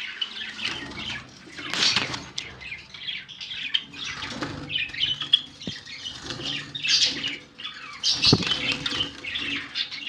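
Caged birds, Java sparrows among them, chirping and squawking, with wings flapping and rustling bumps several times as a phone is pushed in among the cage bars and into a clay-pot nest.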